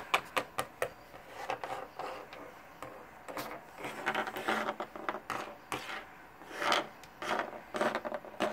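Small plastic toy figures tapping, clicking and sliding on a wooden tabletop as they are picked up and set down, with scraping in between.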